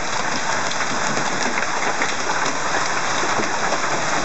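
Heavy hail pelting down: a dense, steady patter of countless hailstones striking hard surfaces and ground.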